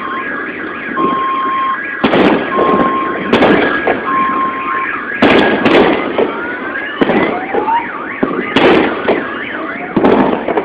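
Car alarms going off, set off by the meteor air burst's shock wave. The first alarm switches back and forth between two steady tones. From about six seconds in, a second alarm joins with repeated rising whoops. Loud sharp bangs cut through every second or two.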